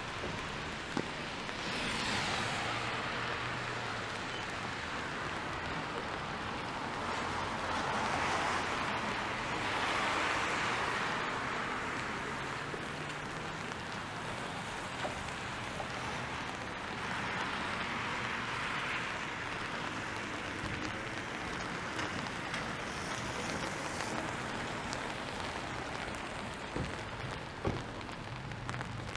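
Wet-street ambience in the rain: a steady hiss of rain and wet pavement, with cars swishing past on the wet road several times.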